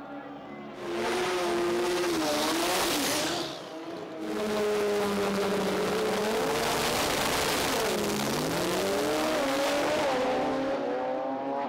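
Drag race car engines at full throttle, loud, the pitch climbing and dropping back repeatedly. Two loud passes: one from about a second in, the other from about four seconds in until near the end.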